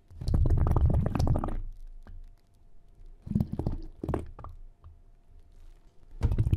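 Low, gurgling underwater whale sounds in bursts: a long stretch at the start, short ones around three to four and a half seconds in, and a louder one starting near the end.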